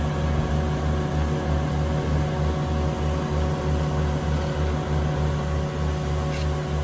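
Diesel engine of a marine travel lift running steadily, with an even low throb of about three beats a second under a steady hum.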